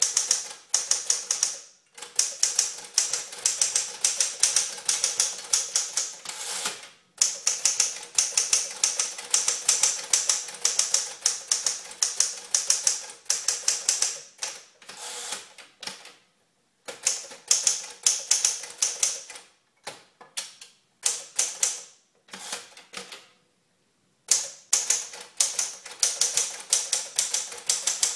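Smith-Corona Clipper portable manual typewriter being touch-typed: quick runs of snappy key strikes with the typebars hitting the platen, broken by short pauses of a second or so.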